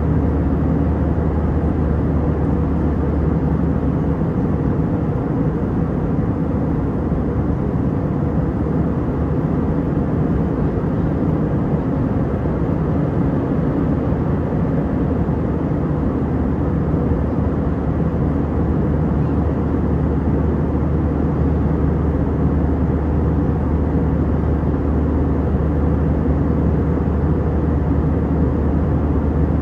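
Steady in-flight cabin noise of an Airbus A320: an even rumble of engines and airflow, strongest in the low range and unchanging throughout.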